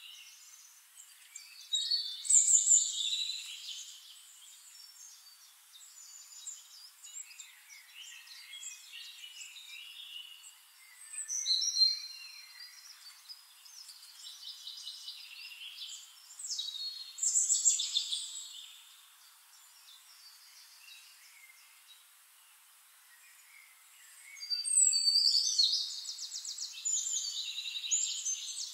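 Songbirds singing: bursts of high chirps and short phrases every few seconds, ending in a long, fast trill near the end.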